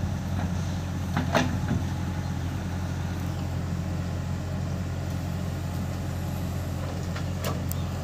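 Steady low diesel engine drone of a JCB 3DX backhoe loader working as it digs earth and lifts its bucket to load a tractor trailer, with a few brief sharp knocks about a second in and near the end.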